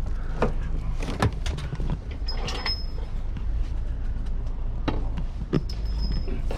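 Metal knocks and clanks, with a couple of short high squeaks, as the old rear lower control arm of a Honda Civic is worked loose from its mounts, over a steady low rumble.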